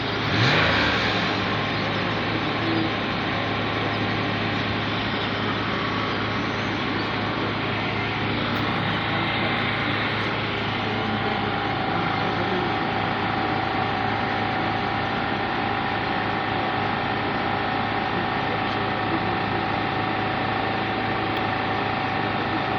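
Car engine idling steadily, with a brief surge in engine speed about half a second in.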